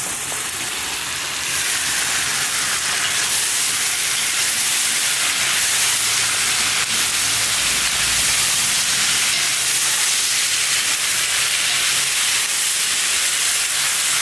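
Beef liver, onions and bell peppers sizzling in hot oil in a cauldron: a steady frying hiss that grows a little louder about a second and a half in.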